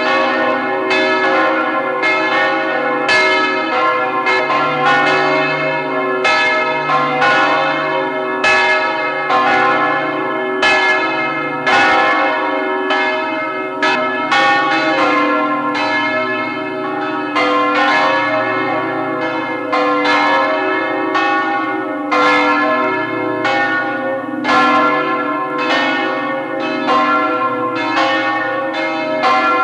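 Full peal of the Liesborn abbey church bells: several swinging church bells strike in an irregular, overlapping pattern, their deep hum tones sounding on beneath the strikes.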